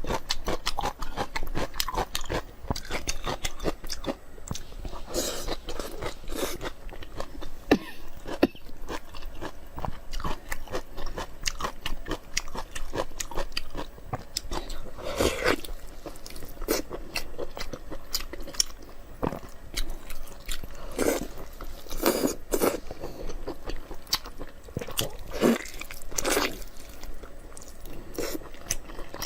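A person chewing and biting food close to the microphone: a dense run of short wet clicks and smacks, with a few louder bites spread through.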